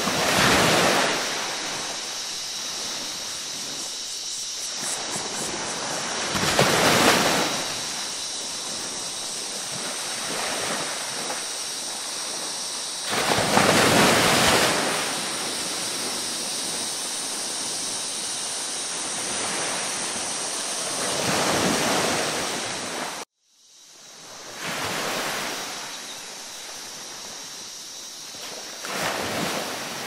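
Ocean waves breaking and washing in, a steady surf with a swell rising and falling roughly every seven seconds. About three-quarters of the way through the sound cuts out abruptly, then fades back in.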